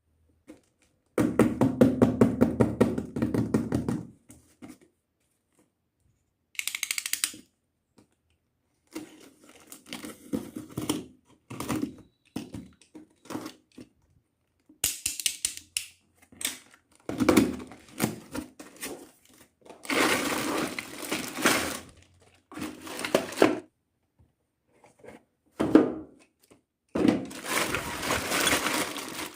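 Small plastic toy kitchen pieces and their packaging being handled: a quick run of rapid clicks in the first few seconds, then scattered knocks and clicks, and longer stretches of crinkling, tearing noise later on, all in separate bursts with quiet gaps between.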